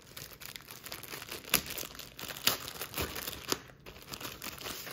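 Clear plastic sleeve crinkling and rustling as a rolled diamond painting canvas is handled and slid out of it, with a few sharper crackles.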